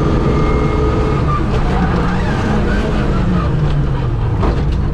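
Suzuki Swift GTi's 1.3-litre four-cylinder rally engine heard from inside the cabin, running hard down a straight. About halfway through, the revs fall as the car slows for the next section, and there are a few knocks near the end.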